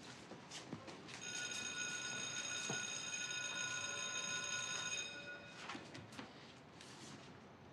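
A high, steady ringing of several tones sounding together, held for about four seconds and cutting off suddenly, with faint scattered knocks around it.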